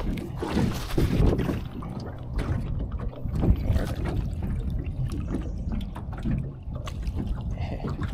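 Wind buffeting the microphone over water lapping and splashing against a small boat, a low rumbling noise with scattered splashy knocks.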